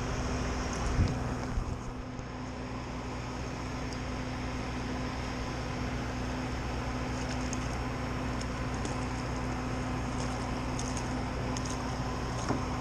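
Steady rain falling on the water and boat, with a low steady hum underneath and a few faint ticks.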